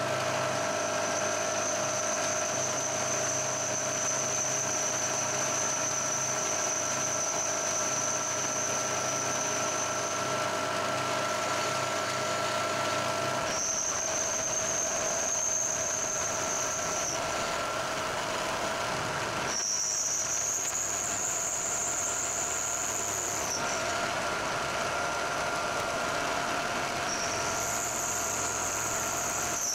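Vertical milling machine cutting a slot in a nut with a slot drill: a steady machine hum with a high-pitched whine that drops out and comes back several times.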